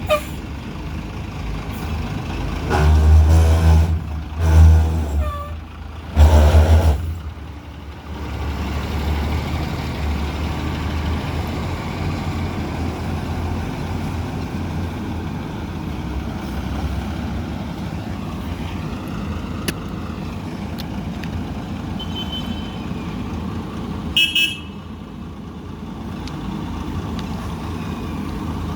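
Diesel engine of a JCB 3DX backhoe loader running, revving up hard three times in the first seven seconds as it works under load, then running steadily. A short high beep sounds near the end.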